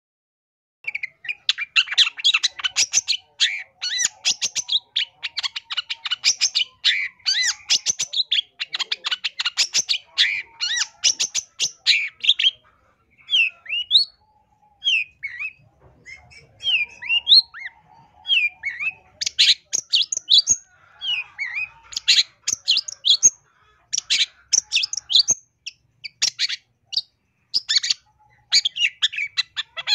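Long-tailed shrike (cendet) singing a long, varied song, starting about a second in. It opens with fast runs of high chattering notes, breaks into separate rising and falling whistles about halfway, then returns to dense chattering. The song is packed with mimicked phrases of other birds, the 'full isian' song prized in cendet.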